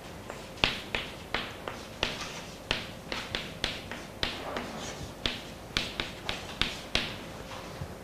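Chalk writing on a chalkboard: a run of sharp taps and short scratches as each stroke is made, about two to three a second, starting about half a second in.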